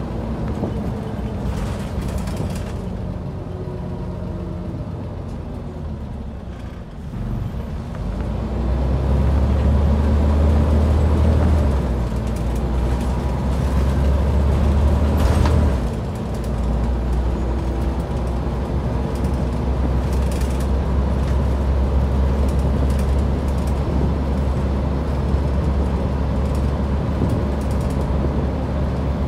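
Scania OmniCity single-deck bus heard from inside the saloon while driving: its diesel engine eases off and dips, then builds up and pulls hard, with two sudden drops in the engine note as it changes gear. The body gives a few brief knocks and rattles.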